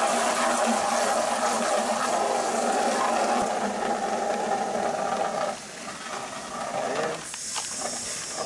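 Water jetting from a garden hose spray nozzle into a plastic bucket, a steady rush that drops in level about five and a half seconds in as the bucket fills.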